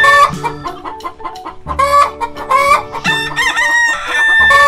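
Rooster crowing, several calls in a row.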